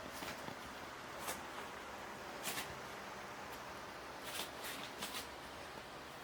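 A kitten scrambling and playing, giving short scratchy rustles and taps of claws and paws, about seven scattered over a few seconds against a steady soft hiss.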